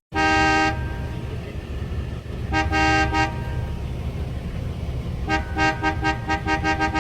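Vehicle horn honking over a low rumble: a honk, then a double honk, then a rapid string of short honks near the end.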